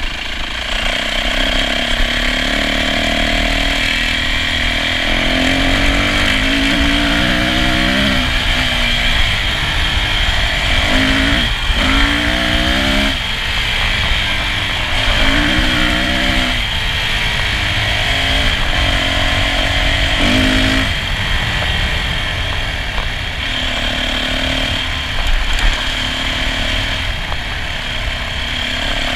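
Dirt bike engine riding on a trail, revving up and easing off again and again, its pitch climbing in sweeps as it pulls through the gears, over a steady rushing hiss.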